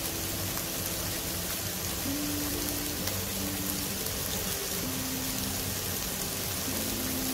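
Chopped onion, green chillies and tomato frying in oil in a non-stick pan: a steady sizzle. Soft background music of long held notes plays under it.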